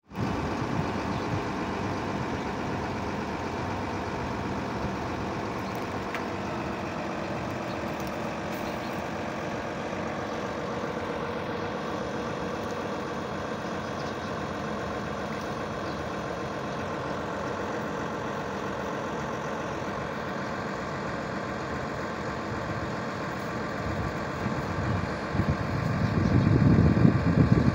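A steady engine hum, like a motor vehicle idling. From about three-quarters of the way through, a louder low rumble builds up.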